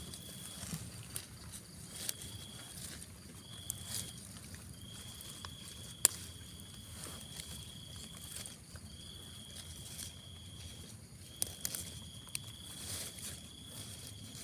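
Faint, high, steady insect call, going on for a few seconds at a time with short breaks, over scattered light clicks and rustles; one sharper click about six seconds in.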